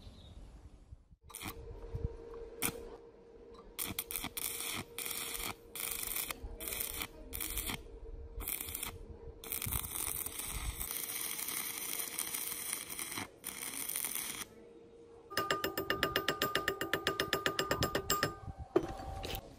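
Stick (arc) welding on a steel axe head: the arc crackles in runs of a second or so with short breaks, over a steady hum. About 15 s in the crackle stops and a fast, even train of light ringing taps follows, a hand tool chipping slag off the fresh weld, ending with a sharp click.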